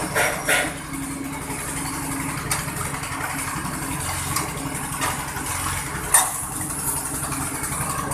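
Coconut husk peeling machine running steadily with a low drive hum, its spiked rollers tearing at a coconut's husk as it is pressed down, with several sharp cracks and snaps of fibre along the way.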